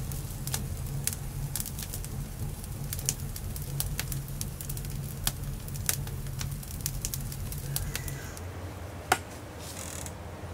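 Wood fire crackling with irregular sharp pops over a low rumble; the rumble stops about eight seconds in, and one loud pop comes shortly after.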